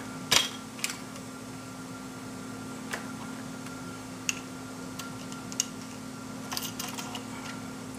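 An RCBS Rockchucker reloading press with a Piggyback II progressive conversion is worked while a bullet is seated in a .44 Special case. It gives scattered sharp metallic clicks and clacks, the loudest about a third of a second in and a quick cluster near the end, over a steady hum.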